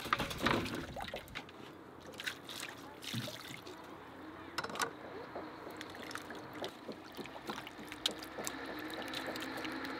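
Peeled potatoes dropped from a plastic bowl into a metal basin of water, then washed by hand: splashing water, with knocks of the potatoes against the basin in the first second and again midway.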